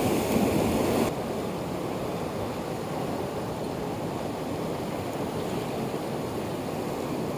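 Rushing water of a mountain torrent, a steady noise. About a second in, it drops abruptly to a quieter, even rush.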